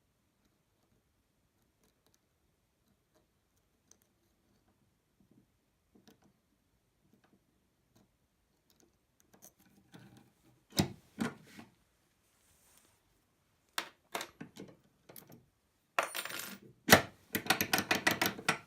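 Master Lock being picked. For the first half the pick makes faint scattered ticks. From about ten seconds in there are sharp metal clicks and clinks, and in the last few seconds a fast clattering rattle of metal as the lock and picks are handled.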